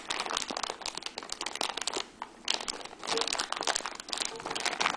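Thin plastic parts bags crinkling and crackling as they are handled and opened, with a brief pause a little after two seconds in.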